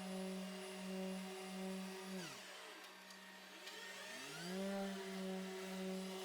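Background music: a steady, pulsing electronic drone that swoops down in pitch and fades out about two seconds in, then slides back up to the same note about two seconds later.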